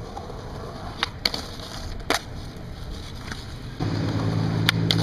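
Skateboard rolling on concrete, with five sharp clacks, three of them in the first couple of seconds and two near the end. About four seconds in, a steady low engine hum starts and stays under the rolling, from a passing pickup truck.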